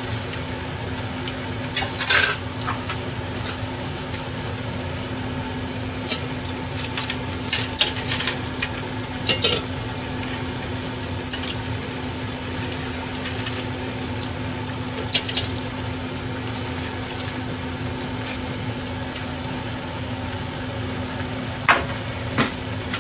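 Oil in a deep-fry pot sizzling and bubbling steadily over a constant low hum. A few light metal clinks of chopsticks and a mesh strainer come through, at about 2 s, around 7 to 9 s and about 15 s in.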